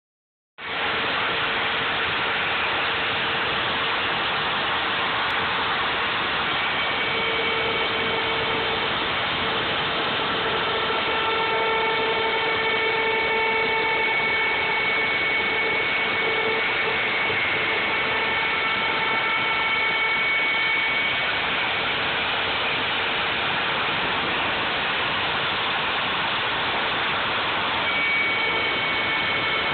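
Router motor on a home-built CNC lathe running with a steady whine while its bit cuts a rope twist into a slowly turning wood blank. A few higher tones swell and fade as the cut goes on.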